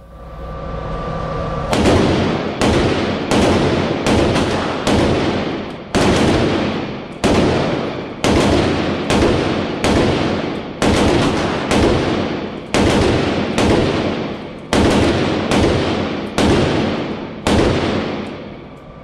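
A PSA Gen 5 AK-47 rifle with an ALG trigger firing a long string of shots, about two a second with a few short pauses, some two dozen in all, each ringing out briefly.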